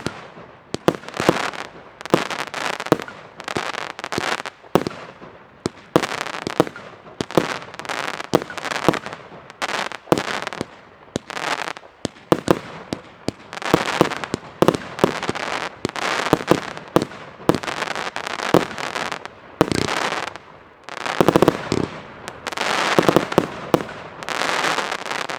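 Evolution Fireworks 'Snowstorm' XXL four-piece compound cake firing a rapid, unbroken series of loud shots and bursts, which ends abruptly.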